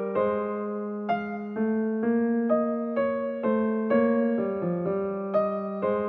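Background music: a soft electric-piano melody, a new note about every half second over a held low note.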